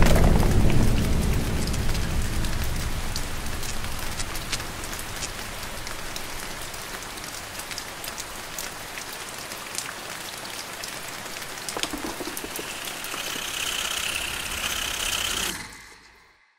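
Steady rain falling with scattered drop splashes. A low rumble fades out over the first few seconds, a single thump comes late on, and the rain hiss swells brighter just before everything cuts off suddenly.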